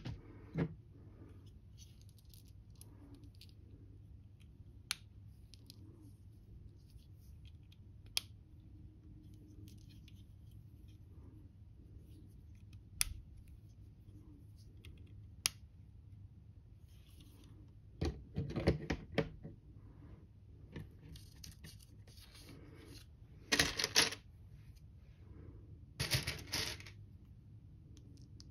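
Plastic LEGO bricks handled and pressed together: scattered single sharp clicks, then a few short bursts of plastic clicking and clatter in the second half.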